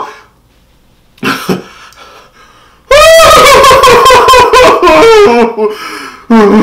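A man's long, high-pitched wailing cry of pain, held for a couple of seconds, from the burn of extremely hot Nashville-style fried chicken. It comes after a short vocal sound about a second in.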